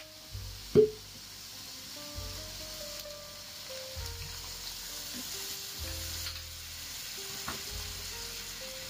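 Hairy gourd strips sizzling in oil in a nonstick wok as they are stirred with a spatula, while a little water is poured in. There is one sharp knock about a second in, the loudest sound here.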